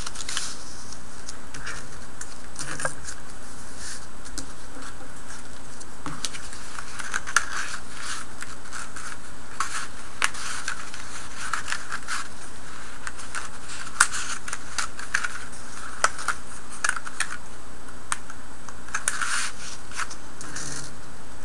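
Cardstock strips sliding and rustling as they are woven over and under through a slotted cardstock sheet, with irregular sharp clicks and taps of card against a cutting mat, over a steady background hiss.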